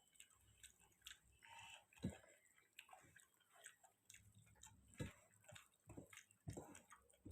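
Near silence broken by faint, scattered small clicks and smacks of someone eating a meal.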